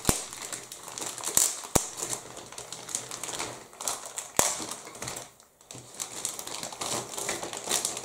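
Clear plastic bag crinkling and rustling as a large sprue of plastic model-kit parts is handled and lifted inside it. A few sharp clicks of hard plastic come through the rustle.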